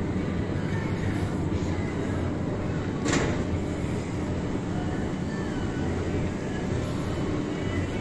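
Supermarket interior while walking the aisles: a steady rumbling hum, with one sharp clack about three seconds in.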